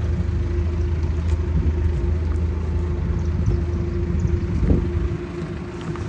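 John Deere 225D LC excavator's diesel engine running steadily, a continuous low rumble with a steady hum, and a few light knocks.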